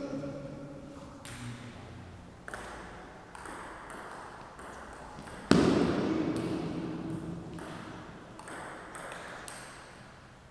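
Table tennis ball clicking off bats and table in a rally, the hits coming at uneven intervals. One much louder hit about five and a half seconds in rings on and fades slowly.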